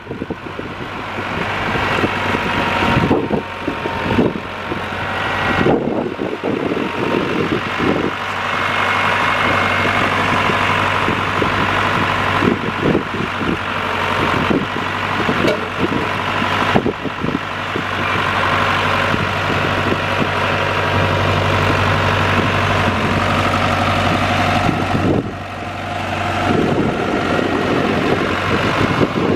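International 250A tractor's D-239 four-cylinder diesel engine running steadily. Its low hum grows stronger for a few seconds about two-thirds of the way through.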